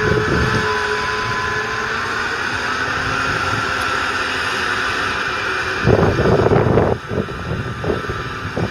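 Case IH Magnum 380 RowTrac's 8.7-litre six-cylinder diesel running steadily. From about six seconds in, loud gusts of wind buffet the microphone in irregular bursts.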